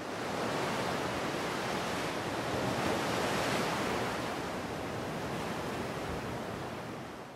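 Ocean surf: a single long wash of noise that swells to its loudest about three and a half seconds in, then eases off and cuts off abruptly at the end.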